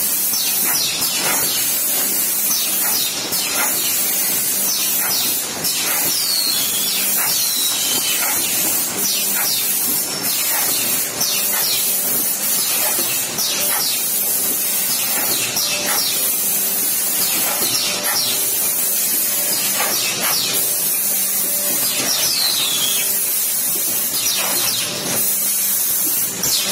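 Fully automatic hydraulic paper plate making machine running: a steady hiss over a low hum, with clicks and knocks coming every second or so.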